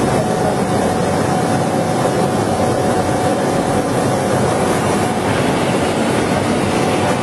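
Laser cutting machine's centrifugal exhaust blowers running, a steady loud rush of air with a faint steady tone.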